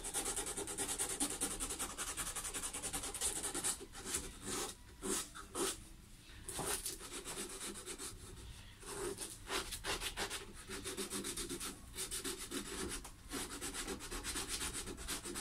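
Abrasive paper being rubbed back and forth over the roasted maple headstock of a guitar neck to sand it to shape, in continuous scratchy strokes broken by a few brief pauses.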